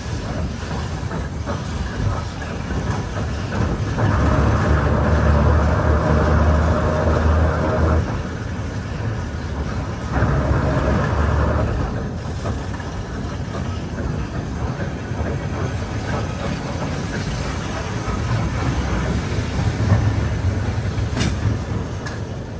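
Historic Lisbon electric tram running slowly, its steel wheels rolling on the rails with a steady low rumble and scattered clicks. It gets louder for a few seconds about four seconds in and again about ten seconds in.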